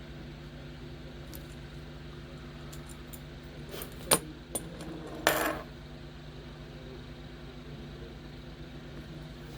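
A few sharp clicks of small hard parts on a work surface about four seconds in, then a brief rattle, over a steady low hum.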